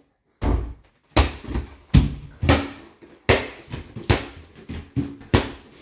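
A basketball being dribbled on the floor: a run of sharp bounces, about one to two a second, each with a short echo off the hallway walls.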